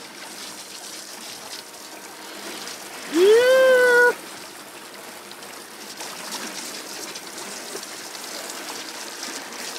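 Water from a boat's washdown hose running and trickling over a fish-cleaning board as a mahi-mahi fillet is rinsed. About three seconds in, a voice gives a short rising note, held for about a second, which is the loudest sound.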